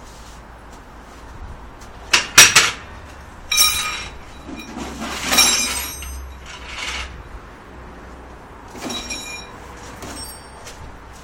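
Sharp metal knocks about two seconds in, then several ringing metallic clanks and clinks spread through the rest.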